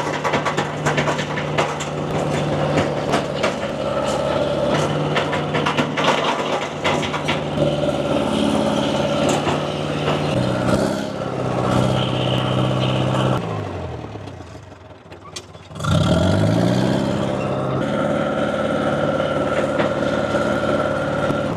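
Dresser TD7E crawler dozer's diesel engine running under load, with many sharp clanks and cracks over it in the first several seconds. About ten seconds in the engine slows and drops toward idle, then revs back up sharply about sixteen seconds in.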